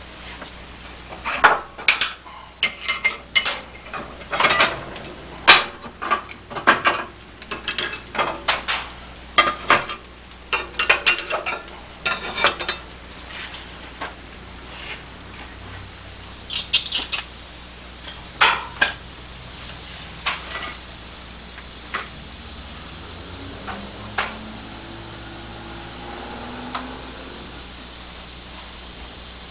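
Metal clanking on a cast-iron wood stove as the fire is stoked and the lid is worked: a quick run of clanks and knocks for the first two-thirds, thinning to a few single knocks over a steady hiss near the end.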